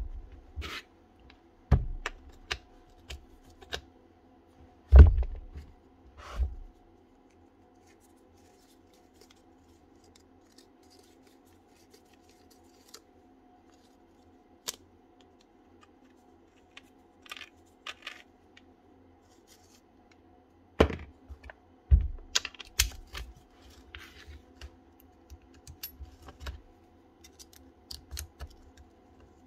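A power tool and its parts being handled during reassembly on a workbench: scattered clicks, taps and knocks, loudest about five seconds in and again around twenty-two seconds, over a faint steady hum.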